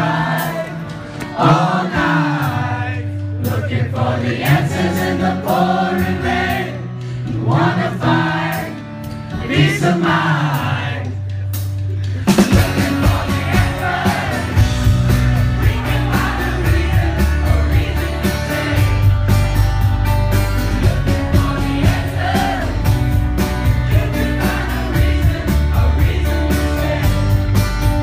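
Live rock band with a male lead vocal over guitars and bass; about twelve seconds in the drums and full band come in and it gets louder.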